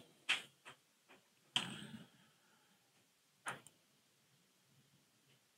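A few short, sharp clicks and knocks in a small room. The loudest comes about a second and a half in and has a brief rough tail.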